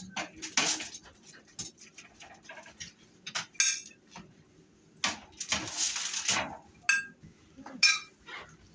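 Plates and cutlery clinking and clattering in a string of short, irregular knocks, as food is served.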